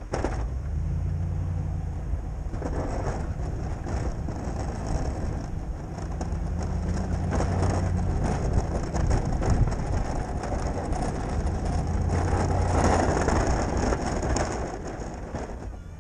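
Ford F-250 pickup's engine running as the truck drives and pushes snow with its V-plow, with a hissing, scraping noise from the blade and snow over a steady low engine hum. The sound grows louder through the middle and eases off near the end.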